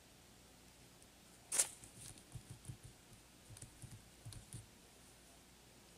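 Computer mouse clicks: one sharp click about a second and a half in, then a scatter of soft irregular clicks and taps over the next three seconds.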